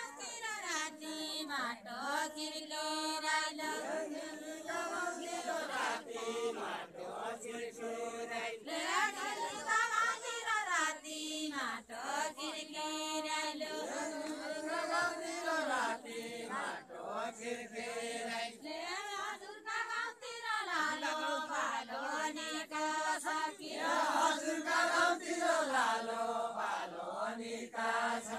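Deuda folk song of far-western Nepal sung by a group in unison, a chant-like melody repeated in phrases of a few seconds each.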